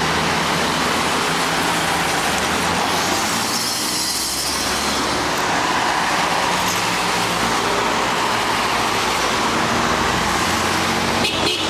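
Road traffic going by: steady tyre and engine noise, with one vehicle passing close about four seconds in.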